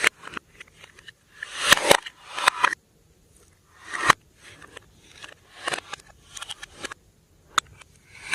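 Glossy slime being squished and worked by hand, making irregular bursts of wet clicks, pops and crackles with short quiet gaps between them.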